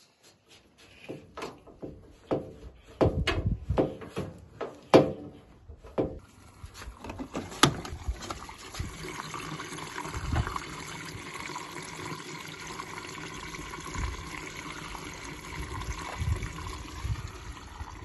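A run of clicks and knocks as the water inlet hose is screwed back onto the Bosch/Siemens washing machine's inlet valve. Then, about seven seconds in, the inlet valve opens and water rushes steadily into the detergent dispenser, filling properly: the low-inflow fault behind the F17/E17 error is cured.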